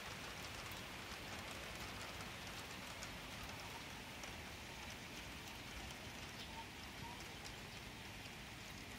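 Faint, steady rain falling, with scattered small ticks of drops striking surfaces.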